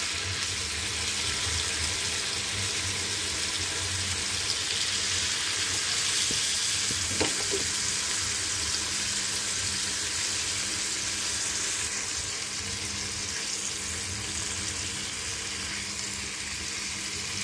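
Marinated chicken tikka on wooden skewers sizzling steadily in hot oil in a flat pan.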